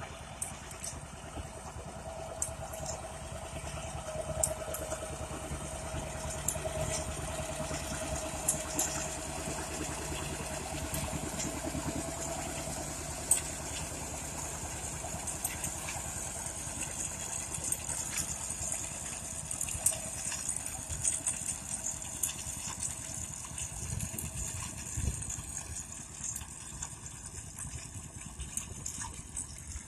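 1955 John Deere 60 tractor's two-cylinder engine running steadily as it pulls a grain binder, with small clicks and clatter from the binder's mechanism. The engine's tone fades in the second half as the rig moves away.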